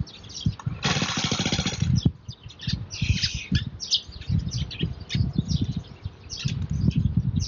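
The small petrol engine of a backpack brush cutter being pull-started. The recoil starter cord is yanked about a second in and again around three seconds in, with uneven low knocking between. The engine does not catch and keep running.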